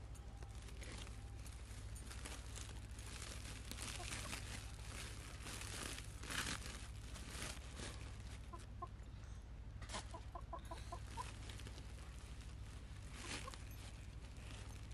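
Plastic bags and cloth rustling as they are handled, with a hen clucking faintly in the background: a few quick clucks about two-thirds of the way through.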